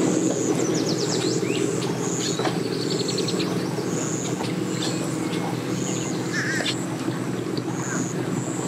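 Birds calling over a steady low engine hum: short high chirps repeat about once a second, with quick runs of chattering calls in between.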